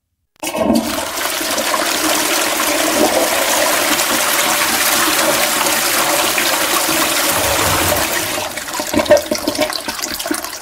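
Toilet flushing: a sudden rush of water about half a second in that runs steadily, then turns gurgly and begins to tail off near the end.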